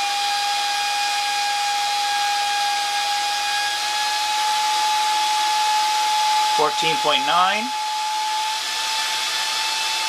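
A salvaged hair dryer's small DC motor and large impeller running on a bench power supply at about 14 volts: a steady whine over rushing air. The pitch creeps slightly higher as the voltage is turned up.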